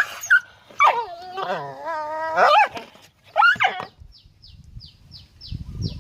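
An animal's drawn-out whining, wavering calls, two of them. They are followed by a run of short, high, falling chirps, about three a second.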